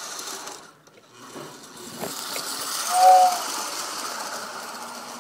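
Toy train set running on its track: the motor and wheels rattle and clatter, getting louder as the train comes past. About three seconds in it gives one short two-note whistle.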